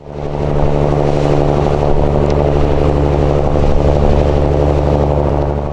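Fishing boat engine running steadily at close range, a low even drone that fades in over the first half second.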